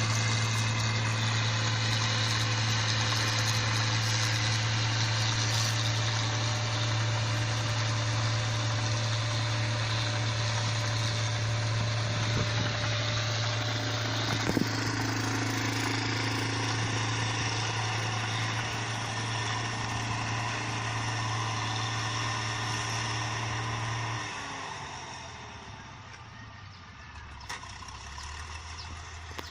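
Engine of a rice paddy machine running steadily with a strong, even hum. About 24 seconds in it throttles down and the sound falls to a quieter low running.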